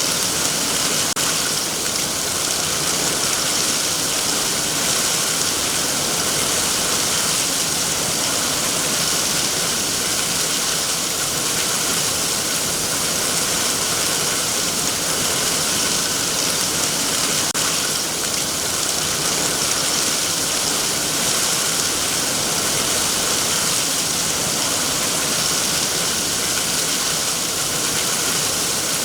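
Heavy rain falling on trees and foliage: a dense, steady hiss of raindrops.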